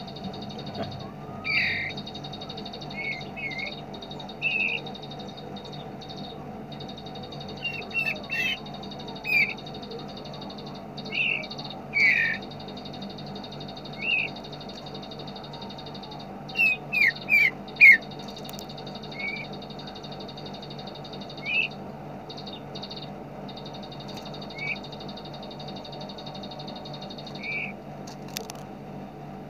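A small songbird giving short, separate chirps at irregular intervals, with a quick run of four near the middle, over a steady low hum and a high whine that drops out now and then.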